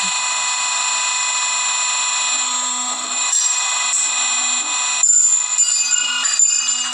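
A crushing machine's motor running with a steady high-pitched whine made of several tones. About five seconds in it turns louder and uneven, with a few sharp cracks.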